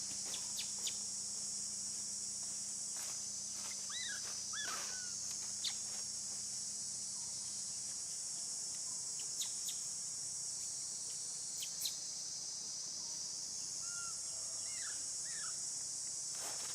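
Insects droning steadily at a high pitch, with a few short bird chirps about four seconds in and again near the end, and scattered sharp clicks.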